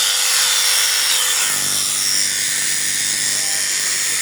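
Electric sheep-shearing clippers running steadily, a continuous buzzing motor noise.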